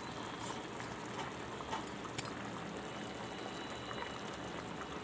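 Thin tamarind gravy of okra and mutton simmering in an aluminium pot on a stove: a steady faint bubbling with many small scattered pops.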